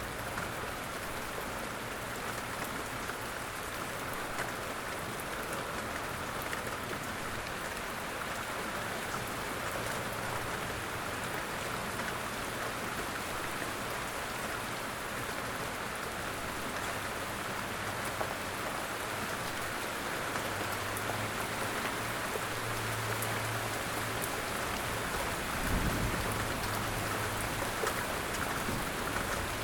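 Light rain falling steadily in woods, a continuous hiss with small drops ticking close by. A faint low hum comes and goes in the second half, with a single soft thump near the end.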